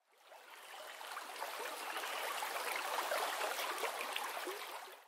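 Running stream water, a steady rushing wash that fades in over the first second or so and cuts off abruptly at the end.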